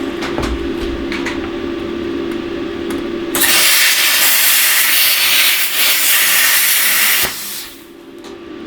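Plasma cutter at work on the rivets of a large bearing's race: a steady hum with a low tone, then about three and a half seconds in the torch fires with a loud, steady hiss for about four seconds and cuts off suddenly.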